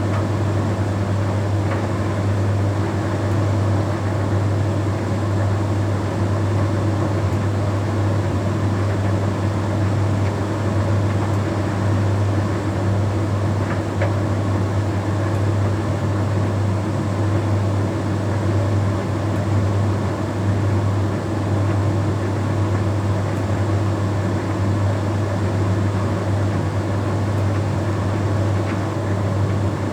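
Bosch Series 6 heat pump tumble dryer running mid-cycle: a steady low hum with the even whirr of the turning drum.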